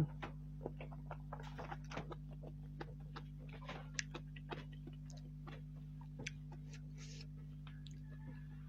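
Close-miked chewing of chicken noodles and meatballs: irregular wet mouth clicks and smacks, over a steady low hum.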